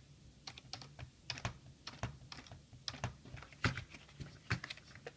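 Typing on a computer keyboard: irregular key clicks, a few a second, stopping shortly before the end.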